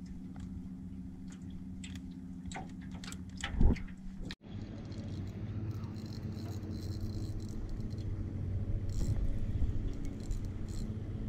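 Hands working raw chicken bait onto a hook inside a plastic bag: small rattles and clicks over a steady low hum, with one sharp knock about three and a half seconds in. After a cut, a steady low rumble of wind and boat noise with a few scattered ticks.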